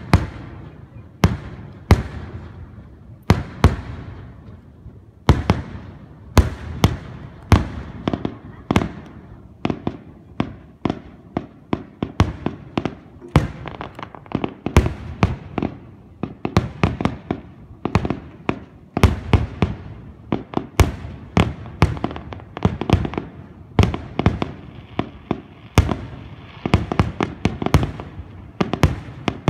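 Aerial fireworks shells bursting: a long series of sharp booms, a second or two apart at first and coming several a second from about the middle on.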